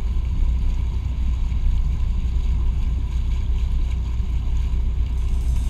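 Huckins 45 sportfisherman running at speed: a steady low rumble with rushing water and wind on the microphone.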